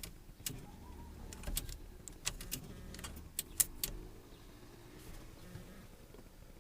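Light clicks and taps of small steering-column parts being handled and fitted back together, about eight sharp ticks scattered over the first four seconds, then quieter.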